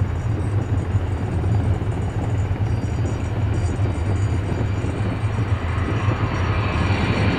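A four-engine Boeing E-3 Sentry AWACS jet at high power on its takeoff roll: a steady deep engine rumble, with a high turbine whine building near the end as the aircraft draws closer.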